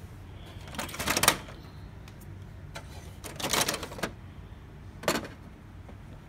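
Plastic cover and toner cartridge of an HP LaserJet M203dn laser printer being opened and handled by hand: three short bursts of plastic rattling and scraping, the loudest about a second in.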